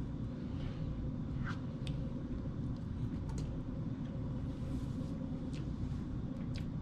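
Steady low hum of a room's air-conditioning unit, with a few faint light clicks scattered through it.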